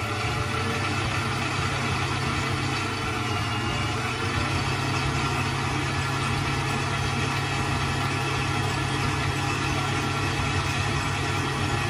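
Electric mixer running steadily as it kneads bread dough, working flour, butter and oil together before the liquids go in.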